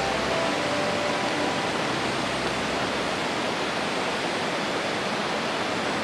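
Mountain creek rushing over a rocky bed: a steady, even rush of water.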